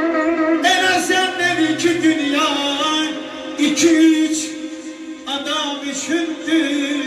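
A man singing a melismatic melody over instrumental music with steady held notes.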